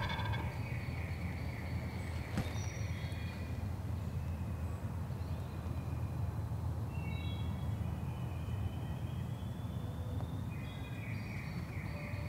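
Spring woodland ambience: songbirds sing thin whistled phrases at intervals over a steady low rumble, with one sharp click a couple of seconds in.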